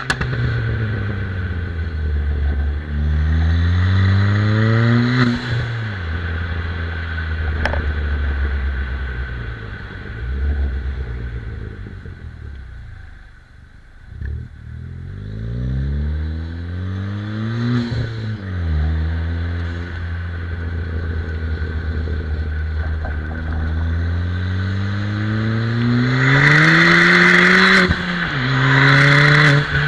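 Tuned 255 hp Ford Fiesta ST engine accelerating hard through the gears: its pitch climbs, drops sharply at each upshift and climbs again. About halfway through it lifts off and goes briefly quiet, then pulls hard again.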